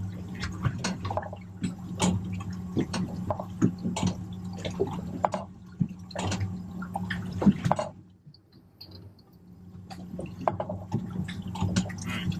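Water slapping and splashing irregularly against the hull of a drifting boat, over a steady low hum, with a short lull about two-thirds of the way through.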